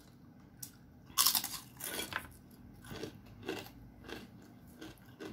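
Crunchy fried food being bitten and chewed close to the microphone: one loud crunch about a second in, then a run of shorter crunching chews.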